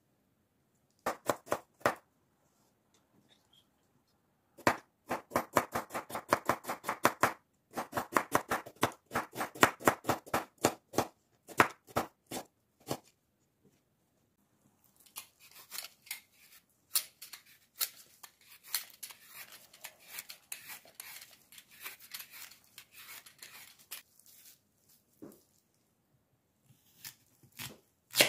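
Carrots being sliced with a crinkle-cut knife on a bamboo cutting board: three chops, then fast runs of crisp chops, about five or six a second, each stroke striking the board. After that come about ten seconds of softer rustling and light taps as the carrot slices are gathered up.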